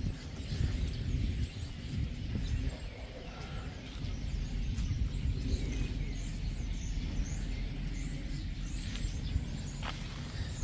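Outdoor ambience: small birds chirping over a steady low rumble.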